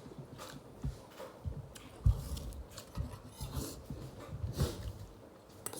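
Close-miked eating sounds: chewing chicken, with irregular wet clicks and smacks, the loudest about two seconds in.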